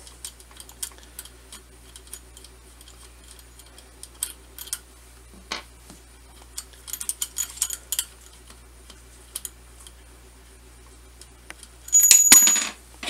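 Small scattered metallic clicks and taps of a 5/32 Allen wrench and screws being worked loose from a steel bracket on a reloading press, with a louder, ringing metallic clatter near the end.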